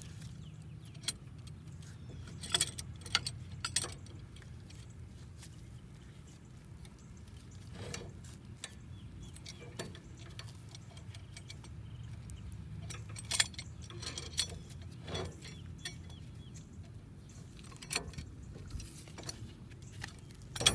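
Scattered metallic clinks and clicks of tools and brake caliper parts being handled during a rear brake pad change, over a steady low hum.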